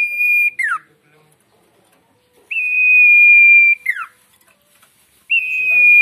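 A caged sirtu songbird whistling its call: a long, high, level note that ends in a quick downward slur. The call ends just after the start, comes whole about two and a half seconds in, and begins again near the end.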